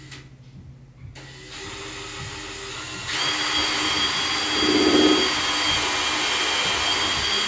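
Cordless drill drilling a pilot hole through a PVC pipe's wall into the round plug fitted in its end. The motor starts low about a second and a half in, then speeds up about three seconds in to a steady whine under load.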